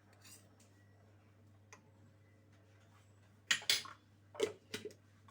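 A spoon clinking and scraping against a container as a honey, citrus and turmeric mixture starts to be stirred. It comes as a run of sharp strokes starting about three and a half seconds in, after a quiet stretch.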